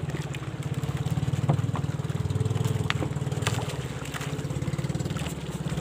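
Small single-engine outrigger banca's motor running with a rapid, even putter, with a few faint clicks over it.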